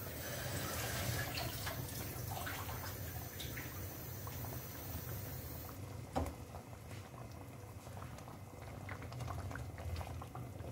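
Thick creamy vegetable ragout simmering in a pan on a gas hob, bubbling and popping steadily, with a single sharp knock about six seconds in.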